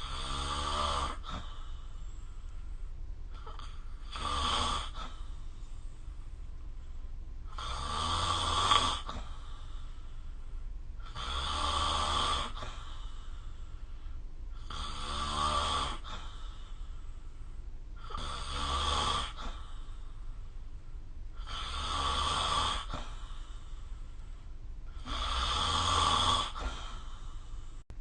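A sleeping person snoring steadily, about eight snores at a regular rhythm of one every three and a half seconds, each lasting about a second.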